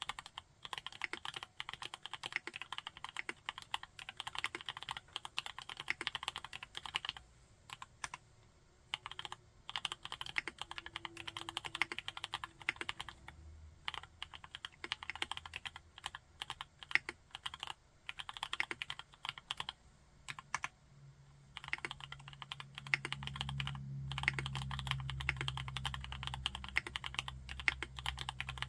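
Typing on a TKD Cycle 7 custom mechanical keyboard with MMD Princess tactile switches: fast, continuous keystrokes in spells, with short pauses about 7, 13 and 20 seconds in.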